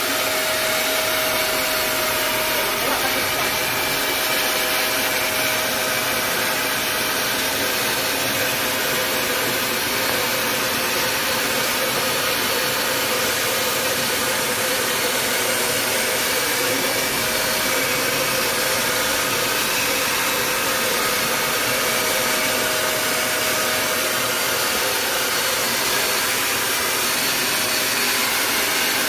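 Steady whir and hiss of a motor-driven machine, unchanging throughout, with a faint steady hum under the hiss.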